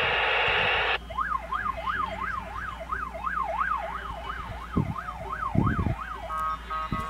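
Electronic siren yelping, its pitch sweeping up and down about three times a second. A loud rushing noise fills the first second, and a short chord of several held tones like a musical horn sounds near the end.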